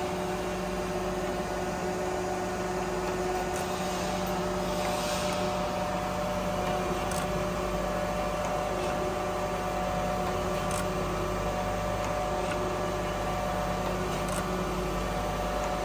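Jakobsen SJ24 surface grinder running with auto cut (automatic downfeed) switched on: a steady machine hum made of several even tones. A faint click comes about every three and a half seconds.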